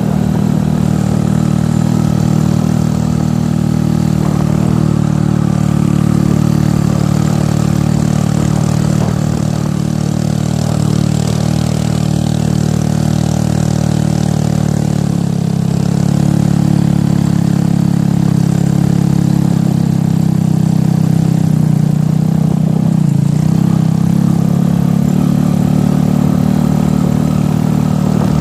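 An engine running steadily, its note shifting slightly and getting a little louder about halfway through.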